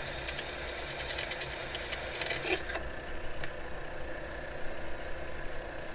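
Taig lathe running while an 11/32-inch twist drill, fed from the tailstock, cuts into the spinning part. High-pitched drill chatter rings for the first two and a half seconds or so, then stops suddenly as the drill gets a good bite, leaving the steady motor hum and a few light ticks.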